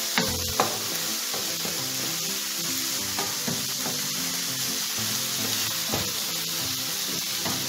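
Small pieces of chicken breast sizzling as they fry in a non-stick pan, stirred with a wooden spatula that scrapes and knocks against the pan now and then, the sharpest knocks about half a second in.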